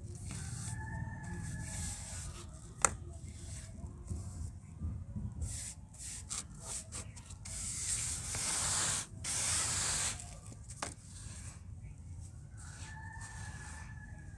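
Dry, powdery red dirt being scooped and sprinkled, with a loud sandy hiss for about two seconds past the middle and one sharp click about three seconds in.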